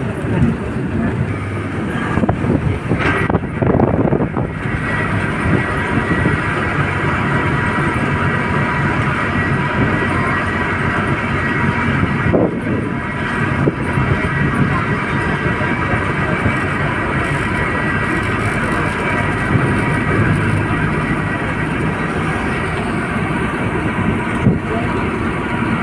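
Steady running noise of a moving vehicle, heard from on board: a continuous hum with wind and travel noise. It swells briefly a few seconds in and again about halfway through.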